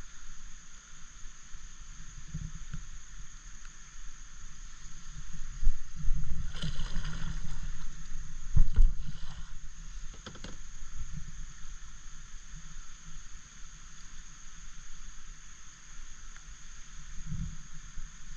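Kayak being paddled through a shallow river shoal: paddle strokes in the water, with a few louder splashes and knocks between about six and ten seconds in, over a steady rush of moving water.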